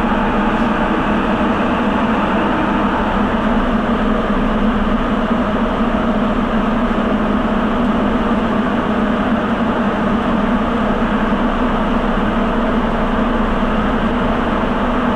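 Rubber-tyred Sapporo subway train (Tōzai Line) running at speed through the tunnel, heard from inside the car: a steady, loud running noise with a low hum.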